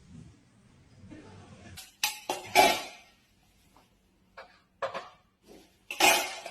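A run of separate clinks and clatters of hard objects, about eight in all, spread unevenly from about two seconds in, with a longer rattle near the end.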